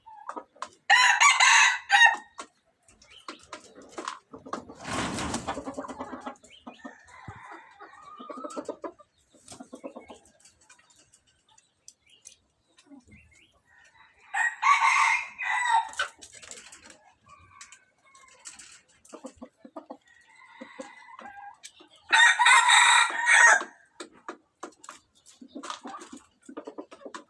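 A rooster crows three times, each crow about a second and a half long, with softer clucking between the crows. A short rustling noise comes a few seconds after the first crow.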